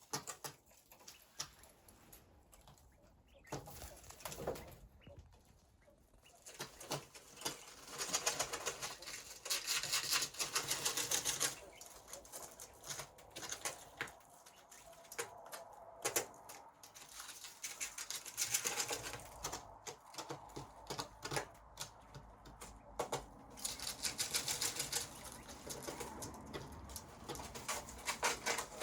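Coturnix quail pecking, making rapid bursts of tapping clicks with short pauses between them. The tapping is heaviest from about eight to twelve seconds in, and again around eighteen seconds.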